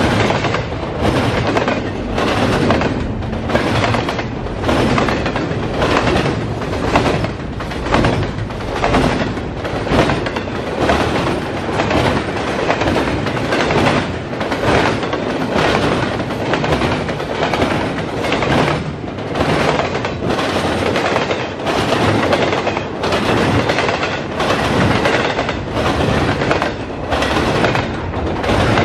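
Freight train of double-stack intermodal well cars rolling past at speed, steel wheels clacking in a steady beat a little more than once a second over a continuous rumble.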